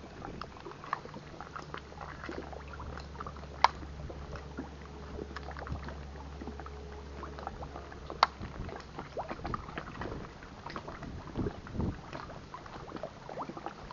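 Small lake waves lapping against a rocky shore, with a low steady rumble for about the first half. Two sharp clicks come about 4 and 8 seconds in.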